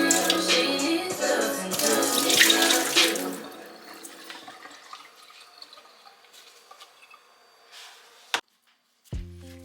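Water running from a kitchen tap into a sink, under background music for the first three and a half seconds, then on its own more faintly. A click and a short break near the end, then the music starts again.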